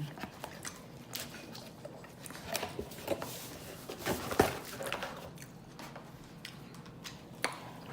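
Close-up mouth sounds of a person chewing pizza: irregular wet smacks and clicks, the loudest about four and a half seconds in.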